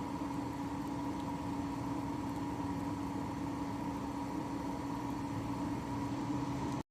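A steady mechanical hum, two constant tones over an even hiss, that cuts off abruptly near the end.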